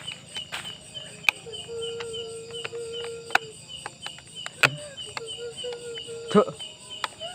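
Crickets chirping in a steady, rapidly pulsing trill, with a low drawn-out hum that wavers and bends near the end, and scattered sharp clicks and knocks.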